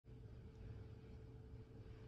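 Near silence: room tone, with a faint low hum and a faint steady tone.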